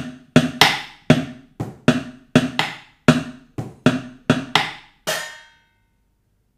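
A rhythm of hard, sharp knocks, two to three a second in an uneven repeating pattern, played with a spoon on an upturned plastic bucket. The last knock, about five seconds in, rings on longer with a metallic tone.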